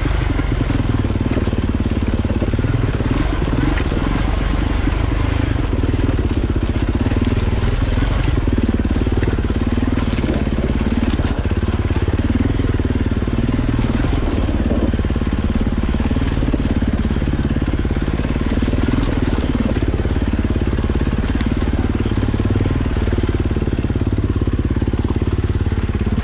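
Enduro motorcycle engine running as the bike is ridden, its pitch wavering up and down over a dense low rumble.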